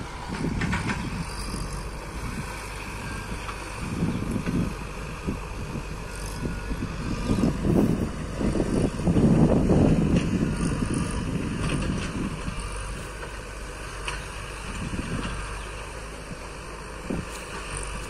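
Tata Hitachi crawler excavator's diesel engine running steadily, swelling louder for a few seconds around the middle as the machine works.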